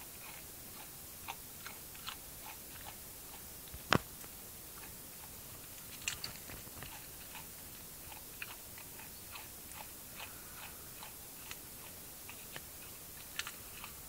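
Faint, scattered crunches and clicks, with one sharp click about four seconds in.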